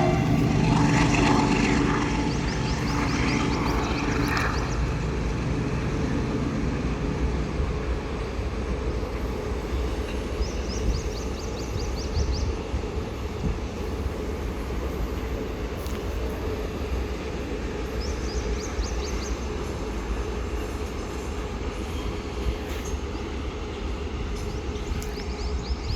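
WDG4G diesel-electric locomotive going past under power, its engine loud for the first several seconds and then fading, followed by the steady rumble of a double-stack container freight train rolling by.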